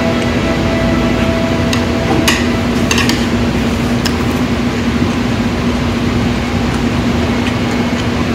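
Restaurant room noise: a steady hum and rush, with a few sharp light clinks of tableware about two to four seconds in.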